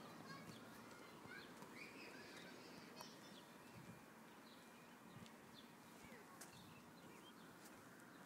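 Near silence: faint outdoor ambience with scattered small bird chirps and a few faint clicks.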